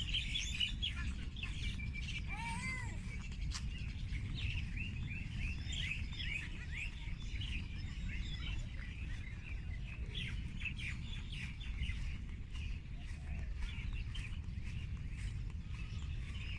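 Many small birds chirping together in a dense, continuous twitter of quick high notes, with one lower rising-and-falling call a couple of seconds in. A steady low rumble runs underneath.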